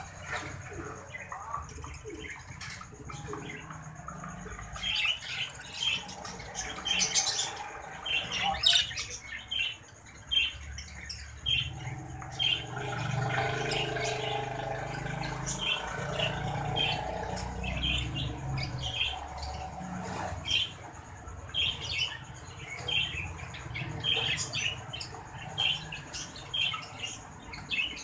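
Exhibition budgerigars chirping and squawking in many short, sharp calls. A steady low noise runs underneath for several seconds in the middle.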